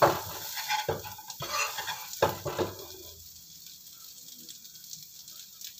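Spatula stirring and scraping fried potatoes, shrimp and sausage in a non-stick wok, several strokes in the first three seconds, over a sizzle. The sizzle fades to a faint hiss in the second half as the pan cools with the gas turned off.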